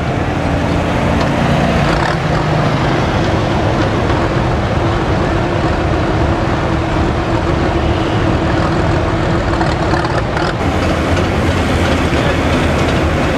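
An engine running steadily, a constant mechanical drone with no change in pitch.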